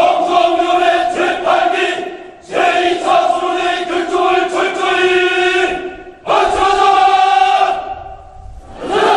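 A large crowd of young rally participants shouting a slogan in unison, in three long drawn-out shouts, the last one shorter.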